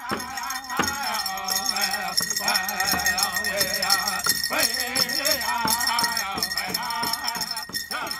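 Men singing a First Nations chicken dance song in wavering voices over hand-drum beats, with the dancers' regalia jingling throughout.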